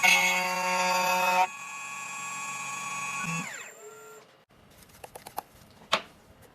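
CNC key cutting machine's spindle motor running with a steady high whine, louder for the first second and a half, then falling in pitch as it spins down about three and a half seconds in: the cut on the key blank is finished and the spindle is stopping. A few light clicks follow, then one sharper click near the end.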